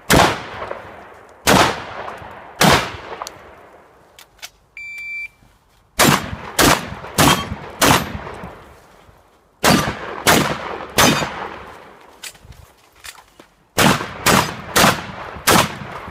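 Shotgun fired in rapid strings: three shots, a pause with a few light clicks and a brief high tone, then strings of five, three and four shots about half a second apart. Each blast trails off in a long echo.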